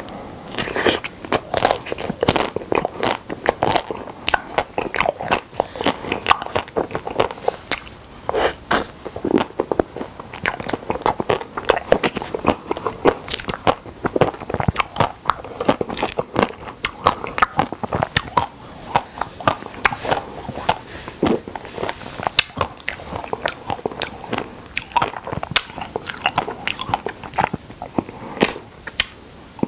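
Close-miked eating sounds of a coated milk caramel ice cream bar (Okdongja): the coating crunching as it is bitten, then chewing, with many small irregular crackles throughout.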